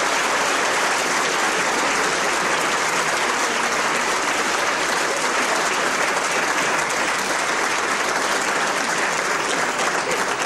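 A live theatre audience applauding steadily, many hands clapping together.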